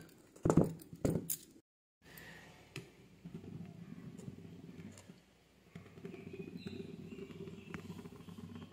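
A steel cake tin handled with a metal pan gripper: a few sharp metal clicks and knocks in the first second and a half. After a short break comes a steady low hum with a few faint ticks.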